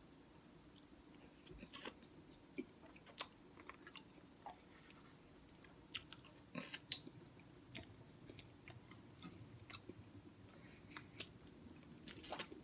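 Faint chewing of a beef and bean burrito: soft wet mouth clicks and smacks at irregular intervals, with a louder cluster of sucking near the end as a finger is licked.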